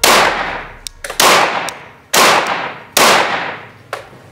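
Four Glock pistol shots fired one after another at a slow, aimed pace, about one a second. Each shot has a long echoing tail, with faint light clicks between shots.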